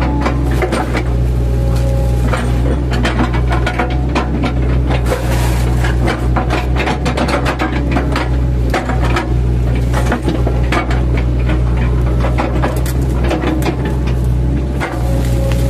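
Mini excavator's engine running steadily under load, with frequent irregular cracks, knocks and scraping as the bucket chops into an oil palm trunk.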